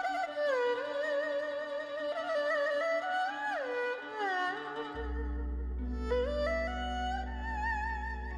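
Background music: a bowed-string melody with sliding pitch bends and vibrato, joined by a low sustained bass about five seconds in.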